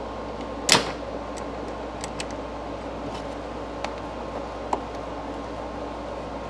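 Scattered light clicks and ticks from the plastic cabin air filter cover behind the glovebox being fitted and screwed back in by hand, with one sharper click about three-quarters of a second in, over a steady hum.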